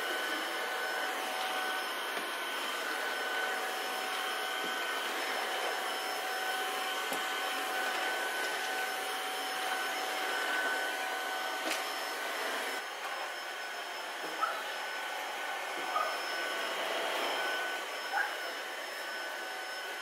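Cordless stick vacuum cleaner running steadily, with a high motor whine over its suction noise, as it is pushed over the wood floor and rug. About two-thirds of the way through it becomes slightly quieter.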